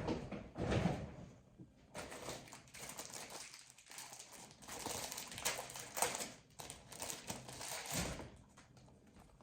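Packaging rustling and crinkling, with light knocks, as a boxed product is handled.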